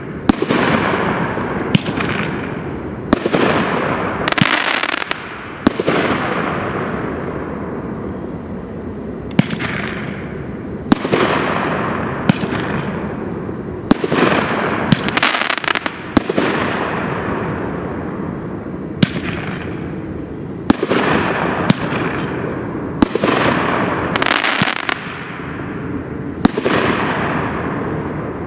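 Megabanger 'Ride It Out' 12-shot firework cake firing shot after shot. Each is a sharp bang followed by a hissing tail that fades away, coming every one to two seconds with a longer gap partway through.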